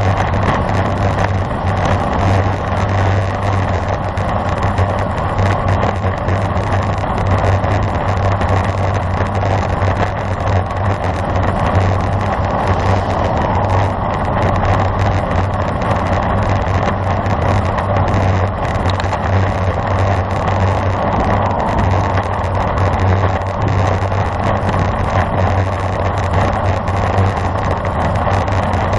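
Steady rush of wind over the microphone of a camera riding along on a racing bicycle at speed, a continuous low rumble with no breaks.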